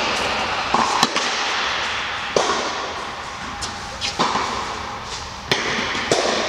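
Tennis rally on an indoor hard court: sharp pops of the ball off racket strings and off the court, a second or two apart, over a steady background hiss.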